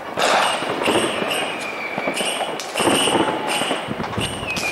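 New Year's Eve fireworks and firecrackers going off around the streets: a rapid, irregular run of bangs and crackling, with a high whistling tone that slowly falls in pitch near the end.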